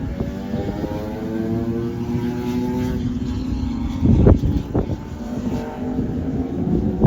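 Sport motorcycles running on a race track: a steady engine note that drifts slowly in pitch. Gusts of wind hit the microphone about four seconds in.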